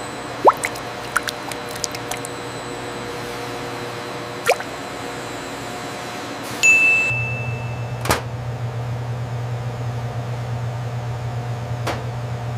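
Food-processing machinery: scattered clicks and pings with a short rising chirp, a brief high beep about six and a half seconds in, then a steady low machine hum.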